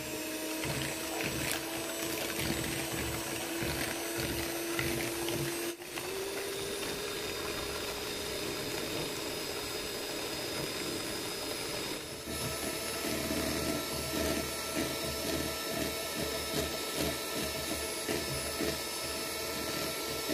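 Scarlett electric hand mixer running steadily, its beaters whisking egg yolks and trickled-in oil into mayonnaise in a plastic bowl, the motor's hum rising slightly in pitch. It breaks off briefly twice, after about six and about twelve seconds.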